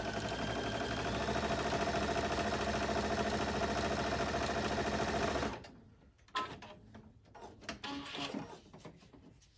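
Baby Lock Ellisimo computerized sewing machine running at a steady speed, stitching a seam, for about five and a half seconds, then stopping abruptly. Faint clicks and fabric handling follow.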